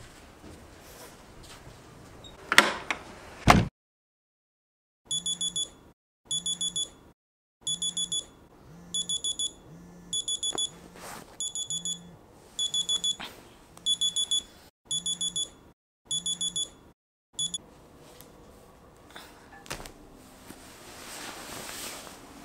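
Smartphone alarm beeping in repeated groups of quick, high beeps, about one group a second, which stops suddenly about three-quarters of the way through. A few seconds in, before the alarm, there are two loud sharp thumps.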